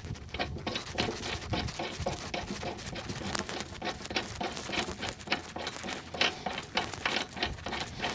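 Light, irregular metal clicks and ticks as a mower blade bolt and its washers are turned back into the deck spindle by hand.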